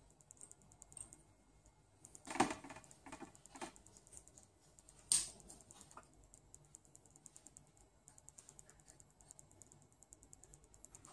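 Faint plastic clicks and ticks, with a few louder knocks between about two and five seconds in, from the key mechanism and circuit boards of an opened MIDI keyboard being handled.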